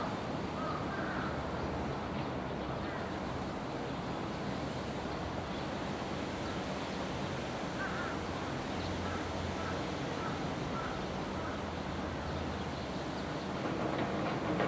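Steady outdoor ambience, an even hiss of wind and distant noise. A faint run of short, evenly spaced chirps comes about eight seconds in, and a louder rumble builds near the end.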